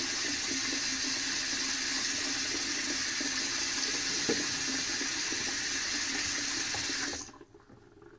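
Bathroom sink faucet running a steady stream of water into the basin, shut off suddenly about seven seconds in.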